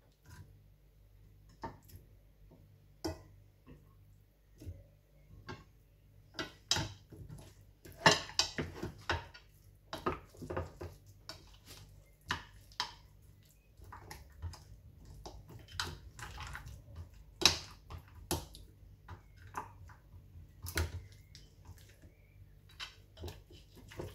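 Lamb chops being laid into and turned in wet gram-flour batter in a glass bowl by hand: irregular taps and clinks against the glass with wet, squelchy batter sounds, over a faint low hum.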